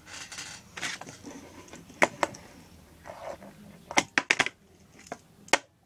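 Tech Deck fingerboard clacking on a tabletop as tricks are flicked: a few light scrapes, a sharp clack about two seconds in, a quick run of three clacks around four seconds, and one more near the end.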